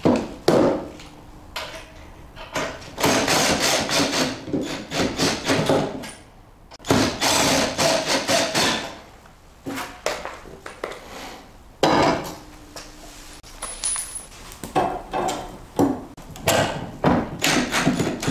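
Metal clattering and knocking as a steel front carrier is fitted onto a scooter and a wire basket is set onto it, in irregular bursts of rattles and taps with short pauses between.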